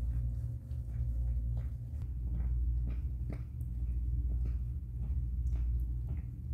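Mother cat purring with a steady low rumble while her newborn kittens nurse, with many small, soft suckling clicks.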